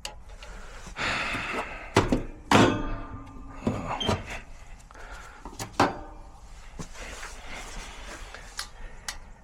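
A series of knocks and clunks from equipment being handled, the loudest about two seconds in, followed by a second one with a brief ringing tail and another near the six-second mark.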